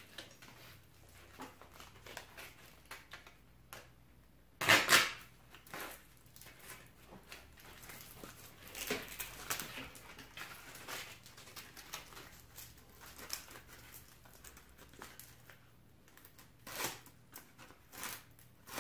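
A utility knife working at a roll of self-adhesive sandpaper, with scattered small clicks and rustling of the paper as it is handled, and one louder rasp about five seconds in.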